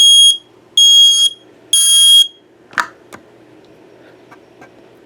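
Kidde i9050 smoke alarm sounding under test: three loud, shrill half-second beeps about a second apart, the temporal-three alarm pattern, followed by a couple of short clicks.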